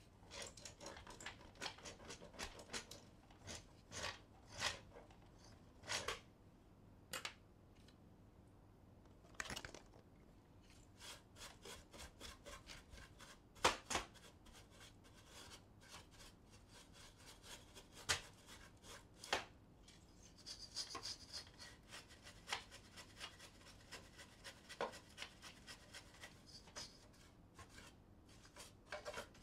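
Short, irregular rubbing and scratching strokes as a cloth and a small bristle brush scrub the plastic paper path inside an Epson L4260 inkjet printer's duplex opening, cleaning out dust and paper debris.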